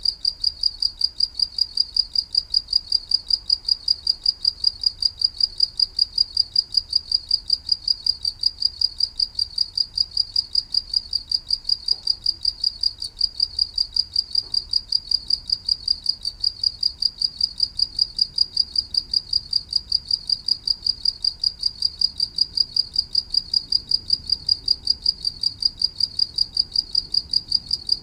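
A cricket chirping steadily in an even, fast rhythm of about four high-pitched chirps a second.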